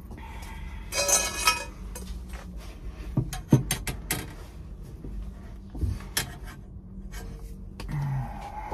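Copper pipe and fittings being handled: a scraping rustle about a second in, then a series of sharp metallic clicks and taps.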